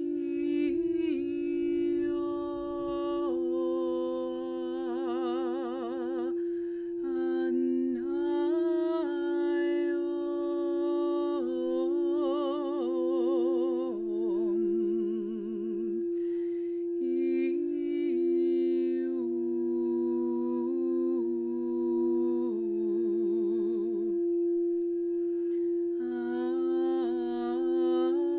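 A quartz crystal singing bowl, the heart chakra bowl, ringing one steady sustained tone under a woman's wordless vocal toning. Her held notes step up and down in pitch, some with a wavering vibrato, and break off briefly a few times.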